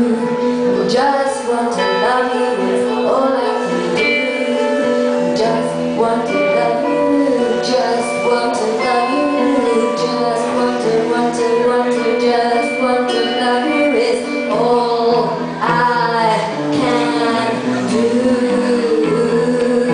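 A woman singing without clear words over acoustic guitar accompaniment.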